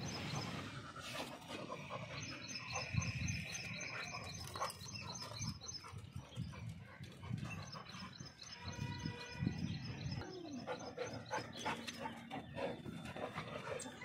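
Labrador retrievers panting and scuffling about, with a short pitched animal cry about nine seconds in.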